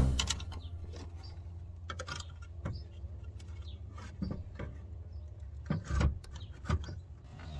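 Plastic interior trim around a car's rear cargo opening being handled while a thin camera wire is tucked in behind it: scattered light clicks and knocks, a few stronger ones about six seconds in, over a low steady hum.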